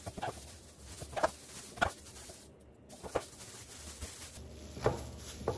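Kitchen knife cutting jalapeño peppers in half lengthwise, knocking on a cutting board about six times at uneven intervals.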